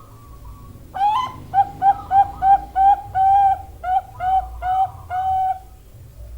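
Zebra dove (perkutut, Bangkok type) cooing. A quick run of about ten short coos starts about a second in, with two notes held longer, and stops a little before the end.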